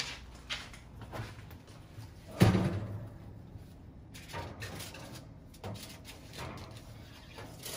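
Kitchen knocks and clatter around a gas range being reached with an oven mitt: one loud thump about two and a half seconds in, then several lighter knocks.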